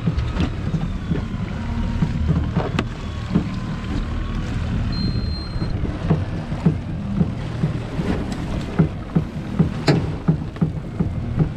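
Water slapping against the side of a drifting fishing boat: frequent short thumps over a low rumble, with wind on the microphone. A faint whine that wavers in pitch runs through the first four seconds or so: the electric reel winding in line.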